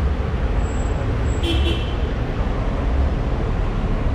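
Street traffic with a steady low rumble, and a brief high-pitched toot about a second and a half in.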